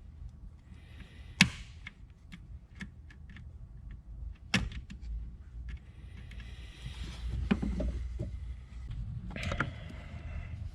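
Hand work on a rubber hose and its spring clamp with pliers: two sharp metallic snaps about a second and a half and four and a half seconds in, with small ticks and rustling, scraping handling in between.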